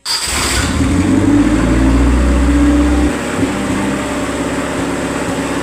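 Suzuki Carry engine running steadily after starting, on its contact-breaker ignition that had caused the no-start. It comes in abruptly, and a deep low rumble drops away about three seconds in while the engine keeps running.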